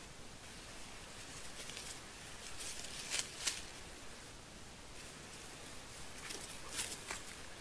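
Dry leaves and undergrowth rustling and crackling as someone moves on the forest floor, with a few sharp crackles about three seconds in and again near the end.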